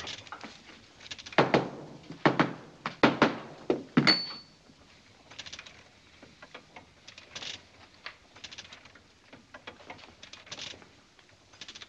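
Hand printing press being worked to pull a proof from set type: about five heavy knocks in the first four seconds, then softer scattered clicks.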